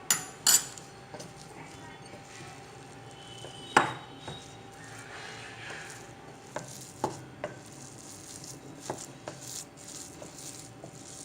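A spoon clinking against a bowl as cooked ven pongal is stirred: scattered sharp knocks, two near the start, the loudest about four seconds in, and several lighter ones later.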